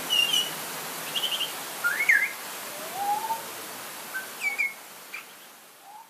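Pied butcherbird singing: a string of clear, fluting whistled notes and short rising glides, over a steady hiss of light rain. The sound fades out near the end.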